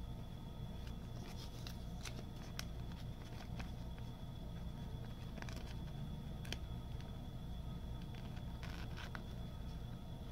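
Faint handling noises: scattered light clicks and scrapes of a trading card and a plastic card sleeve being handled, over a steady low hum.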